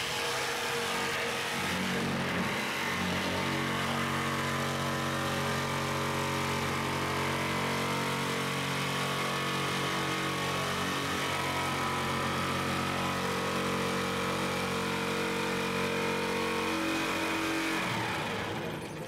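Corded handheld electric power tool cutting sheet metal: its motor runs steadily under load, with a brief drop near the end.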